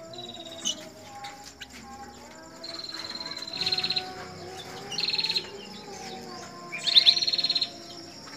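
Small caged songbird known in Indonesian bird keeping as 'flamboyan' singing repeated high, buzzy trilled phrases, the loudest with quick falling sweeps about seven seconds in.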